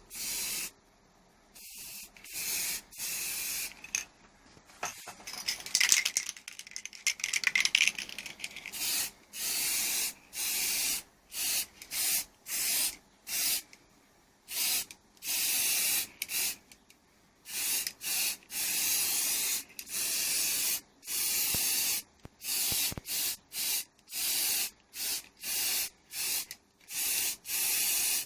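Pressurised spray hissing out in many short bursts, each starting and stopping sharply, about one to two a second for most of the time. About six to eight seconds in there is a stretch of scratchy rubbing.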